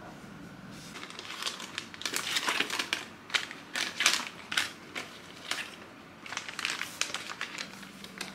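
Plastic sheet-mask packets crinkling and rustling in a quick series of short crinkles as they are picked out of a storage cart's basket and handled.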